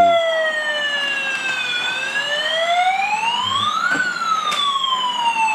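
Toy fire truck's siren sound wailing: a tone that falls slowly for about two seconds, rises again over the next two, then starts falling once more.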